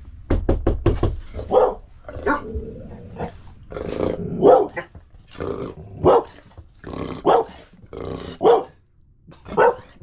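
A quick run of about five knocks, then a dog barking in repeated short, loud barks: alert barking set off by a knock at the door.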